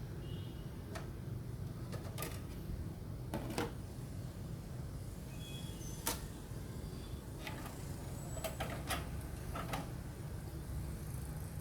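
Scattered light clicks and knocks, about eight of them spread unevenly, over a low steady hum, with no music playing.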